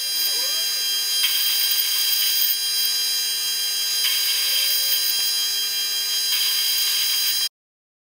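Warco WM180 mini lathe running while a turning tool cuts the end of the steel crank pin: a steady high motor-and-gear whine with cutting hiss that grows and fades a few times. It cuts off abruptly near the end.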